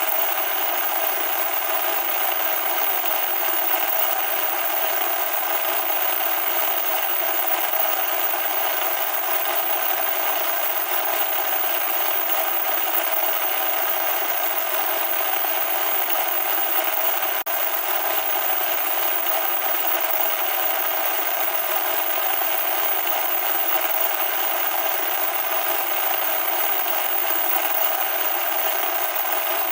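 Loud, steady static noise: an even hiss with no bass that holds level without a break.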